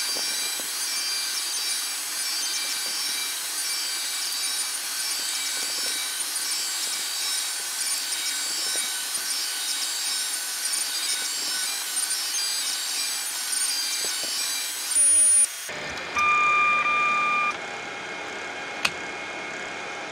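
3D printer printing with continuous helical head motion: its stepper motors whine in a steady, wavering mix of high tones over cooling-fan hiss. About 15 seconds in, a brief high tone sounds and the printing noise cuts off abruptly; a steady beep about a second long and a single click follow.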